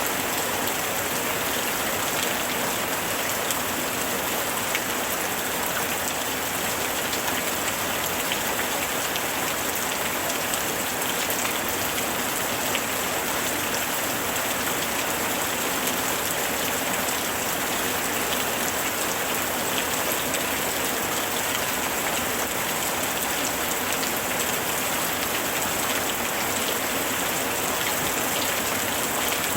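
Steady summer rain falling hard and evenly, a dense hiss of drops with faint individual drop ticks and no breaks.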